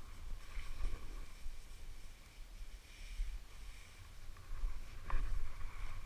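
Skis hissing and scraping over snow in several swells through turns, the sharpest scrape about five seconds in, over an uneven low wind rumble on the microphone.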